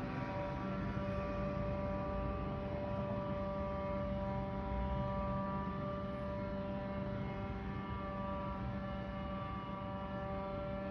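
A steady droning hum of several held tones over a low rumble, unchanging throughout.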